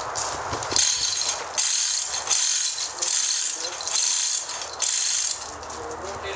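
Manual chain hoist being worked by its hand chain: about five pulls, each a burst of ratcheting clicks with the chain rattling through the hoist.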